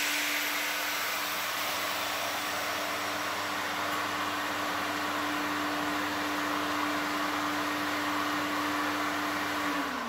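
Dust extractor running steadily after a saw cut: an even rushing hiss with a steady hum. Right at the end the hum drops in pitch as the extractor begins to wind down.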